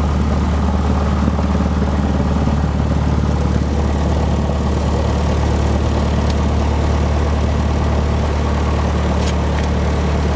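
Cessna 152's four-cylinder Lycoming engine and propeller running steadily at low power while taxiing after landing, heard from inside the cabin.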